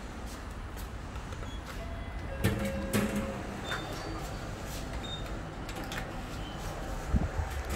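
Fujitec passenger lift doors sliding open, with clicks and a short tone from the door mechanism about two and a half seconds in, over a steady low hum. Near the end the doors close with a low thump after the door-close button is pressed.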